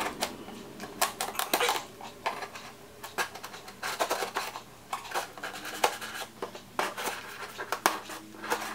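A knife cutting the plastic seal around a cardboard box: a run of irregular scrapes, ticks and crackles as the blade is dragged along the box's edges.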